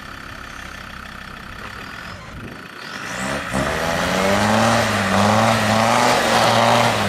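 Land Rover Discovery TD5's five-cylinder turbodiesel engine ticking over low, then revving up about three seconds in and held at high revs under load as the truck drives off-road. The revs drop off suddenly near the end.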